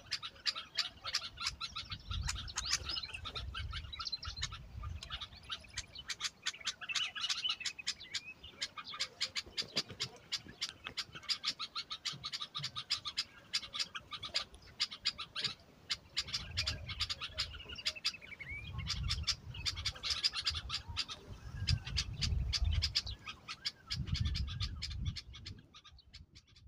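Birds chirping rapidly and continuously, many short calls overlapping, with occasional low rumbles underneath.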